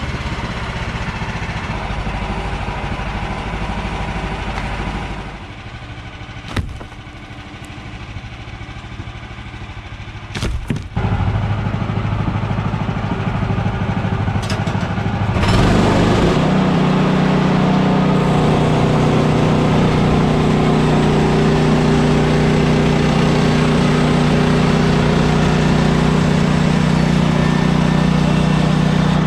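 Small gasoline engine of a Woodland Mills portable bandsaw mill running. It falls to a quieter, lower note about five seconds in and picks up again around eleven seconds. From about fifteen seconds it runs louder and steady.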